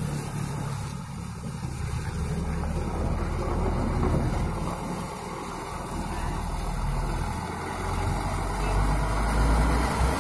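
Heavy truck engines running: a water-tanker truck pulling away, and a second heavy truck's engine close by getting louder near the end.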